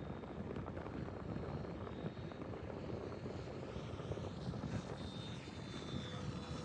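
Electric motor and propeller of an FMS P-47 Razorback RC warbird whining in flight, with a faint high thin tone; about halfway through, the sound starts to sweep as the plane passes. Wind rumbles on the microphone underneath.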